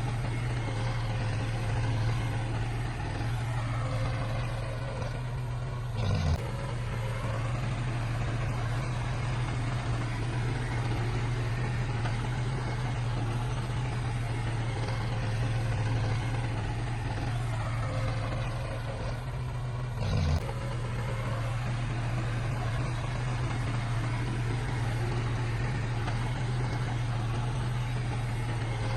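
Heavy diesel earthmoving machinery running with a deep steady drone. Twice the engine note sags and recovers, each time ending in a sharp knock.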